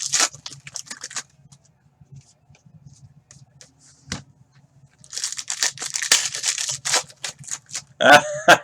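Trading card pack wrappers being torn open and crinkled, in two bursts of crackly rustling, with a single knock in between. A man's voice starts near the end.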